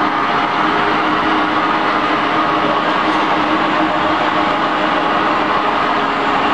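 Blanchard 22D rotary surface grinder running steadily: an even mechanical hum and whir with a few held tones and no change in level.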